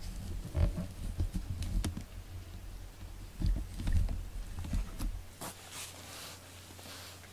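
A tabby cat rubbing its face and fur against the camera, giving irregular close bumps and clicks on the microphone. A few short brushing rustles follow later.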